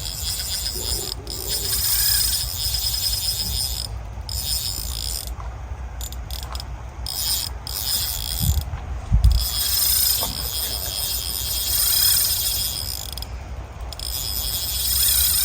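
Carp reel's clutch ticking in spurts as a hooked carp pulls off line, with short pauses between runs. There are a couple of dull low thumps about halfway through.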